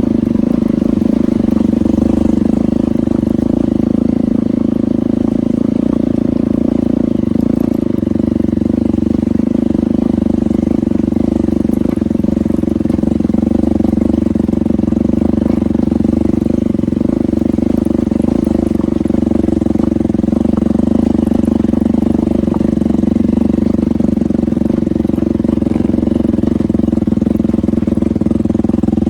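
Hero Impulse motorcycle's single-cylinder engine running under way at a steady, even speed, with no revving up or down.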